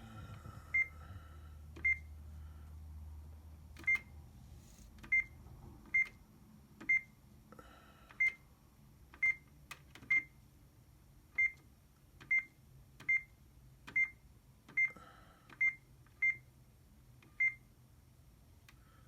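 Control-panel key beeps of an HP 3330 printer: about seventeen short, high beeps, each with a button click, at irregular intervals as the menu keys are pressed. A faint low hum underlies the first few seconds.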